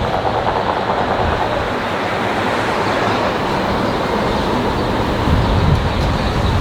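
Loud steady rush and rumble of city traffic passing, with the low rumble swelling near the end.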